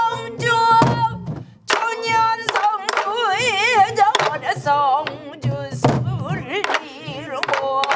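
A woman singing in Korean pansori style, holding long notes with a wide vibrato, over a group of buk barrel drums beaten with sticks and palms in a steady rhythm.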